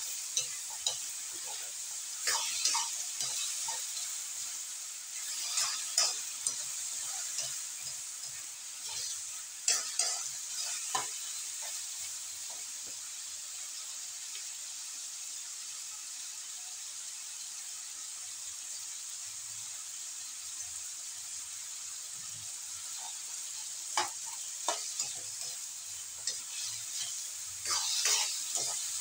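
Sliced bottle gourd sizzling steadily in oil in a hot wok. A metal spatula scrapes and clinks against the wok in spells of stir-frying early on, around the first third and again near the end, with sizzle alone through a long stretch in the middle.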